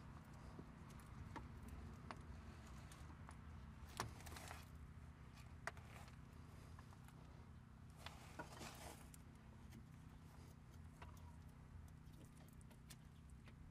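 Faint, scattered metallic clicks and clinks of a wrench working an air fitting loose on a semi truck's air brake chamber, with a sharper click about four seconds in and a couple of short scraping sounds, over a low steady hum.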